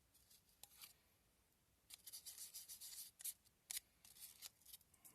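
400-grit sandpaper handled and rubbed on an oiled wooden gun stock: a few light clicks, then from about two seconds in faint, irregular scratchy strokes as the linseed oil is sanded in.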